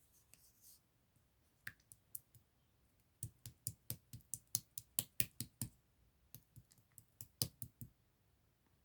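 Clear blue slime being pressed and squeezed by hand, giving sharp sticky clicks and pops: a few scattered ones, then a quick run of about four or five a second, and a shorter run near the end.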